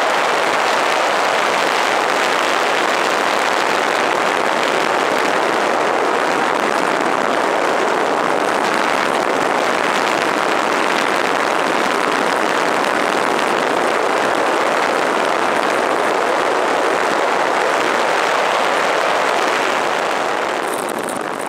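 Steady rushing road and wind noise of a vehicle driving across a dry lakebed, with no distinct engine note, fading out near the end.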